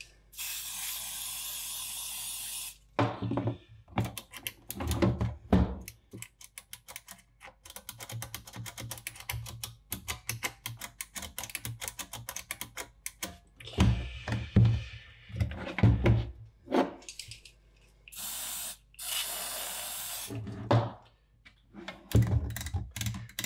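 Aerosol contact cleaner sprayed into a passive monitor controller's switches in two bursts, about two and a half seconds near the start and about two seconds later on. Between the bursts come many quick clicks from the push-button switches being pressed repeatedly, and a few knocks from handling the open chassis.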